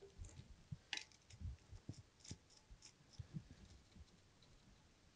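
Faint, scattered light clicks and scrapes of a screwdriver and fingers working a toilet seat's plastic hinge fixing, about one or two a second.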